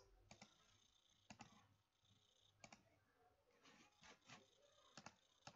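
Faint computer mouse clicks, scattered over near silence, several of them in quick pairs.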